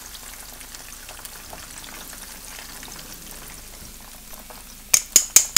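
Battered chicken pieces deep-frying in a pan of hot oil at the end of their second fry: a steady crackling sizzle. Near the end, a quick run of five or six sharp metal clinks, louder than the frying.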